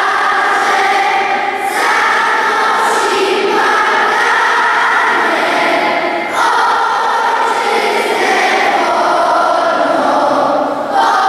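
Large children's choir singing together, led by a conductor, in long held phrases that break briefly about every four to five seconds.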